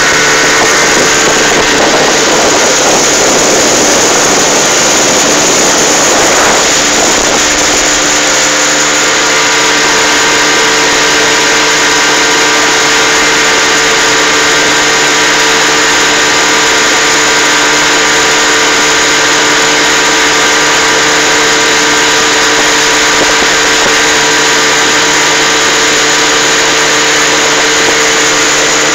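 Boat motor of a small metal boat running steadily at speed, with water rushing past the hull. Its note settles and holds a steady pitch from about seven seconds in.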